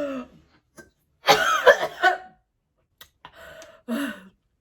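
A woman coughing hard and choking on extremely spicy noodles: one loud, harsh coughing fit about a second in, then shorter coughs and a strained vocal sound near the end.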